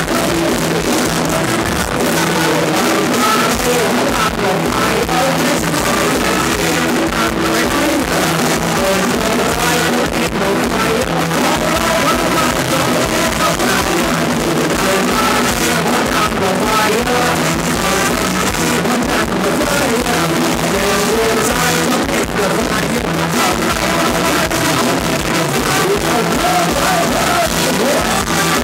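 Live band playing Thai ramwong dance music with drum kit and a singing voice.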